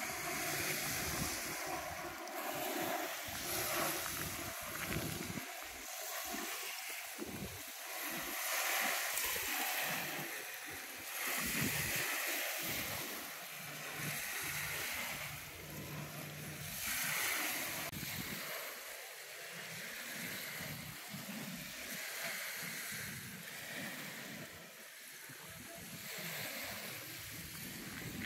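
Small lake waves washing onto a sandy shore, swelling every few seconds, with some wind noise on the microphone.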